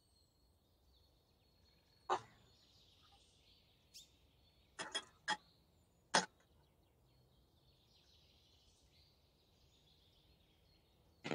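About six sharp clinks of a spoon knocking against a plate and a metal mesh strainer as a grated eggplant mixture is scraped into the strainer. Later comes faint soft rustling as the mixture is pressed down in the strainer.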